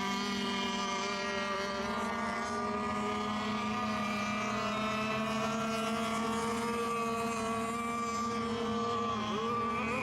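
Several radio-controlled racing boats' motors buzzing steadily together as the boats circle before the start, one of them dropping in pitch and picking up again near the end.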